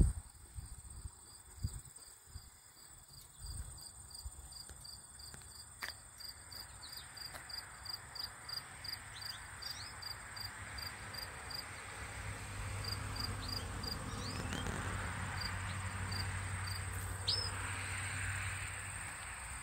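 Crickets singing in summer grass: one steady high-pitched trill throughout, with a second insect pulsing about three times a second. A low steady rumble builds in the second half.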